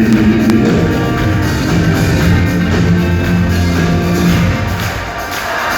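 Live rock band playing an instrumental passage between sung lines, with guitar, bass and drums, in a poor-quality audience recording. The sound thins out briefly near the end before the full band comes back in.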